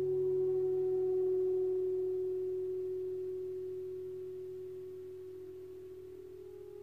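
A 70 cm Wuhan tam-tam gong rubbed with a friction mallet, sounding one steady hum with fainter overtones above it. It holds for about two seconds and then slowly fades.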